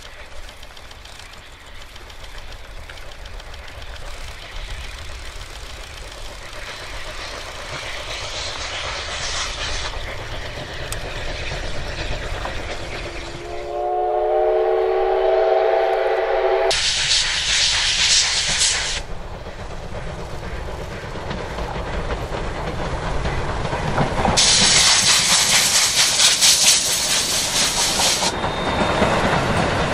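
Steam locomotive D51 200 working hard, its exhaust beats swelling louder as it comes closer. About halfway through, its steam whistle blows one chord-like note for about three seconds. Twice afterwards a loud, fast-pulsing hiss of steam and exhaust takes over, starting and stopping abruptly.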